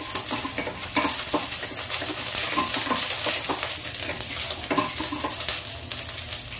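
Red onion pieces sizzling in hot cooking oil in a stainless steel pan, stirred with a wooden spatula that knocks and scrapes against the pan many times.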